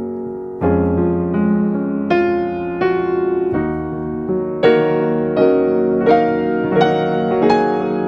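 Background music: a piano melody, one note struck about every second over sustained lower notes.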